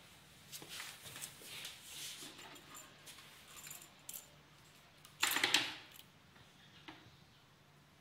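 A coiled cable with a round metal multi-pin connector rattling as it is handled and uncoiled: scattered small clicks and rustles, with one louder clatter about five seconds in.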